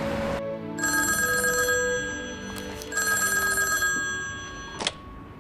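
Old desk telephone's bell ringing twice, each ring about a second long, over soft background music; a single sharp click follows near the end.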